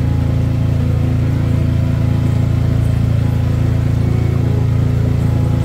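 Motorboat engine running steadily at cruising speed, a constant low hum.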